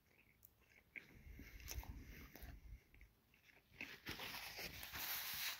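A person chewing a mouthful of smoked brisket sandwich, faint and irregular, with an even hiss in the last second and a half.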